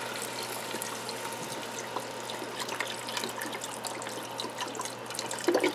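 Chicken broth pouring in a steady stream from a carton into a pot of chopped chicken and vegetables, splashing onto the food.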